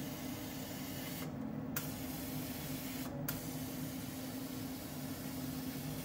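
CO2 laser cutter cutting 3 mm plywood: a steady hiss of compressed air blowing from the air-assist nozzle over the low hum of the machine. The hiss cuts out briefly twice, about a second in and again about three seconds in.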